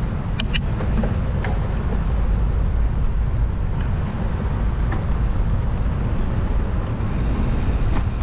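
Steady low wind rush on the camera's microphone and tyre rumble over concrete sidewalk from a mountain bike being ridden, with a few sharp clicks.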